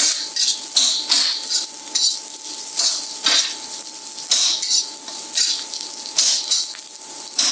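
Ginger, shallots and bacon sizzling in hot oil in an induction wok, stirred with repeated irregular scraping strokes of the utensil against the wok, with a faint steady tone underneath.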